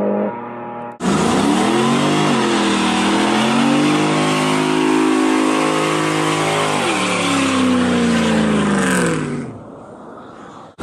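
Car engine revving hard during a burnout, its pitch climbing and falling several times over the steady hiss of spinning tyres; the noise dies down near the end.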